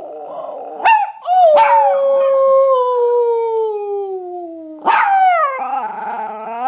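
A Chihuahua mix howling: a sharp rising cry about a second in, then a long howl sliding slowly down in pitch, and a second howl just before five seconds in. A lower, wavering human howl joins near the end, the owner howling along with the dog.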